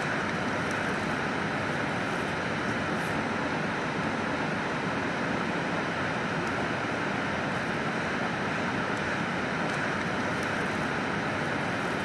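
Waterfall and river water rushing steadily over rocks, a constant even rush of noise.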